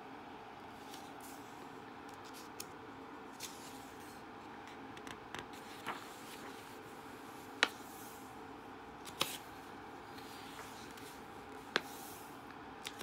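Magazine pages being turned and handled: soft paper rustles and a few short sharp snaps of paper, the sharpest a little past halfway, over a faint steady hum.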